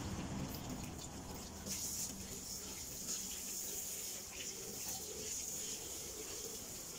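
Water from a garden hose running and splashing during a car wash.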